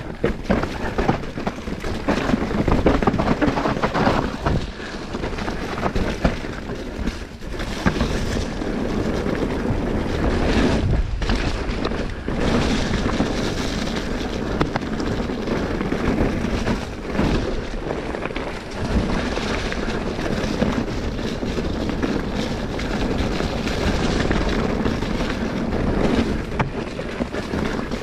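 Wind rushing over the camera microphone and the tyres of an e-mountain bike rolling fast over a dirt and gravel trail, with frequent knocks and rattles from the bike as it hits roots and stones.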